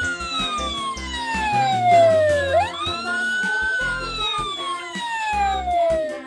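Fire engine siren wailing. Its pitch slides slowly down, climbs quickly again about two and a half seconds in, then slides slowly down once more and stops. Children's background music plays under it.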